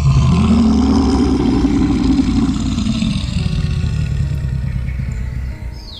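A loud engine-like rumble starts abruptly, rises in pitch over about two seconds, then falls and fades away toward the end, over faint background music.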